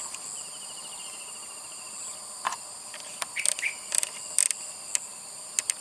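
A steady high-pitched insect chorus, with a fast ticking trill during the first two seconds and scattered sharp clicks through the second half.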